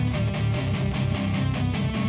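Background rock music: an instrumental break with strummed, distorted electric guitar over a steady beat.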